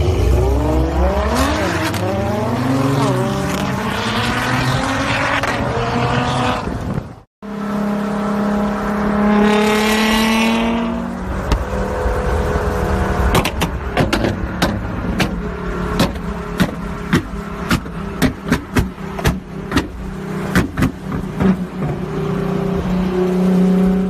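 Nissan GT-R R35's twin-turbo V6 exhaust being revved hard, the pitch climbing and dropping several times. After a cut it idles with a short rev, then lets out a long string of sharp exhaust pops and cracks over the steady idle.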